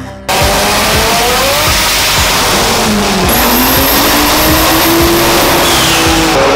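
A turbocharged BMW E36 engine running hard on a chassis dynamometer. The engine note cuts in suddenly, dips in pitch, then climbs steadily as the engine revs up through a pull.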